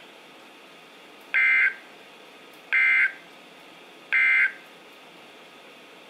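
Three short bursts of Emergency Alert System digital data screech from a weather alert radio's speaker, evenly spaced about a second and a half apart: the end-of-message code that closes the warning broadcast.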